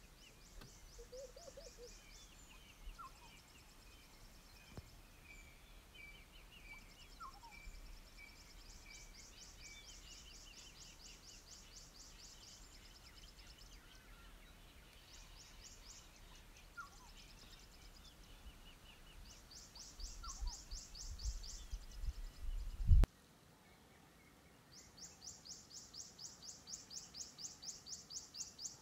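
Bush ambience with birds calling and chirping, and trains of rapid, high-pitched pulsing calls that come and go. A low rumble underneath stops abruptly about 23 seconds in, after which a steady run of pulsing calls at about two to three a second starts up.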